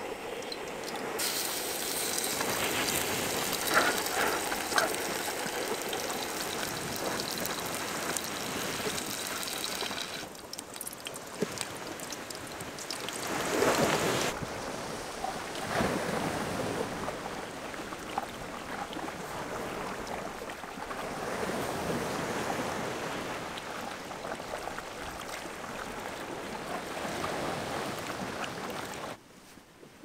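Water pouring and trickling, with a steady rushing, splashing sound that changes abruptly several times and cuts off about a second before the end.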